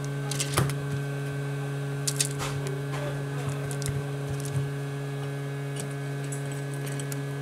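Steady electrical hum with a few light clicks and taps as the glass back cover of a Samsung Galaxy S6 edge is pressed down into place by hand and the phone is handled.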